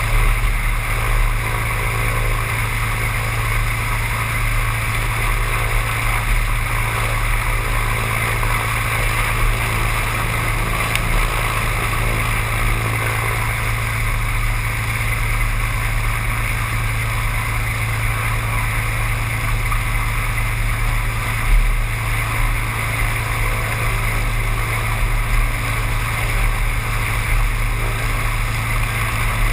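Seaplane's engine and propeller running steadily, a constant drone with no change in pitch.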